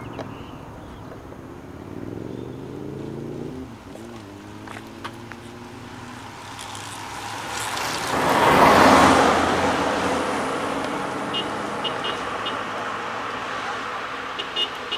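Race traffic on a country road. A car engine passes with a gliding pitch about two seconds in. About eight to nine seconds in a vehicle rushes past close by, the loudest moment. A few short, high toots come near the end.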